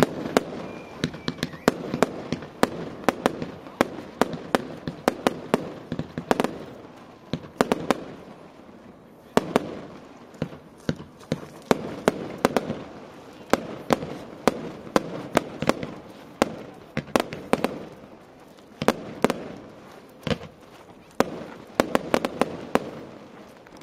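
Fireworks display: a dense, irregular run of sharp bangs and cracks from bursting shells, often several a second, with a few short lulls.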